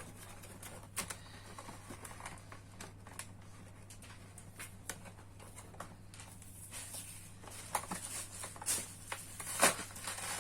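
Small plastic toy pieces and their packaging being handled and peeled apart: scattered faint clicks and crinkles that grow busier and louder near the end, over a steady low hum.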